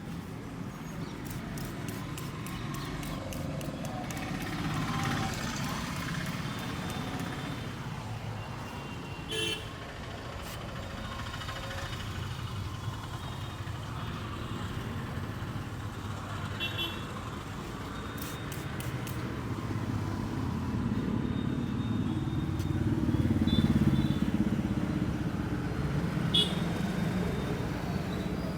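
Street traffic: a steady rumble of motorbikes and cars going by, swelling as a vehicle passes about three-quarters of the way through, with a few short sharp sounds.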